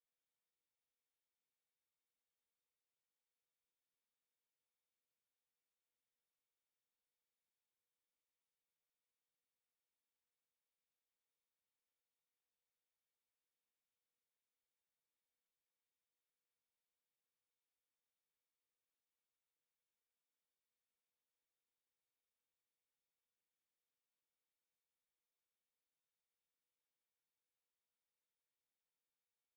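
Steady pure 7777 Hz sine test tone, one unchanging high-pitched whistle, used to check speaker and headphone treble response.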